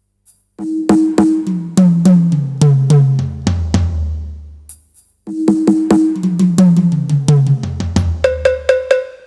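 Sampled drum-kit sounds from an Avatar PD-705 percussion pad: two tom fills, each a run of hits stepping down in pitch to a long deep boom. The second fill ends with quick repeated higher drum hits.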